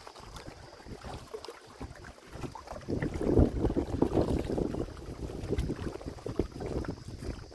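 Wind buffeting the microphone outdoors, an uneven low rumble that gusts louder about three seconds in.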